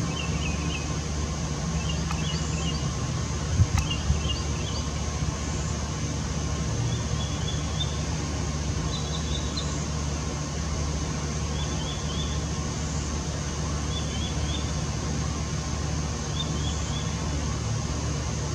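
Outdoor ambience: a steady low drone, with short clusters of high chirps from a small animal repeating every second or two. Two brief bumps come about four seconds in.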